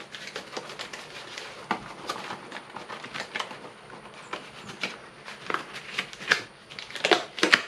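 Thick yellow rubber gloves being pulled onto the hands: irregular rubbery rustling and squeaking, with a few louder slaps near the end.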